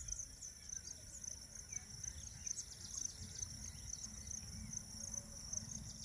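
Insects, crickets or similar, chirring in a steady high-pitched chorus with small quick pulses, over a faint low rumble.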